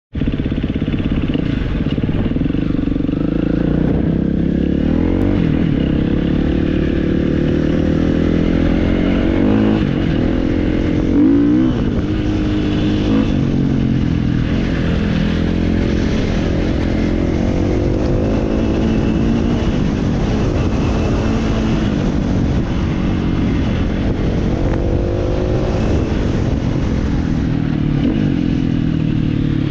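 Off-road motorcycle engine running continuously, its pitch rising and falling as the throttle opens and closes.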